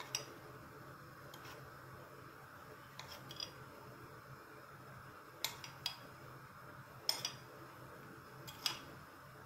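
A metal spoon clinking lightly against glass as powdered sugar is spooned into a glass pan of cocoa: about eight short clinks, several in quick pairs, over a faint steady hiss.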